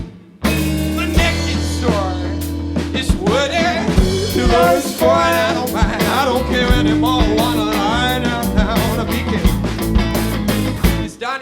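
A band playing a rock song, with a steady bass and drum groove under a lead melody that bends and wavers in pitch. The music drops out briefly at the very start, then comes back in.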